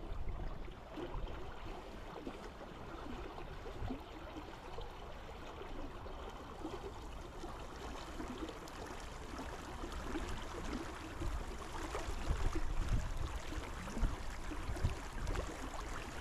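River water rushing steadily, with irregular low rumbles, a little louder in the last few seconds.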